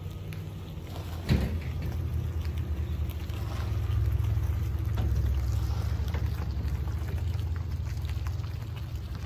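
Nissan Frontier pickup driving past while towing a small camper trailer, its engine a steady low rumble that grows louder as the truck passes midway. A single sharp knock about a second in.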